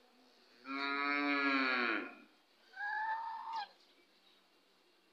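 White domestic geese calling: one long, drawn-out honk of over a second that drops in pitch at its end, then a shorter, higher honk.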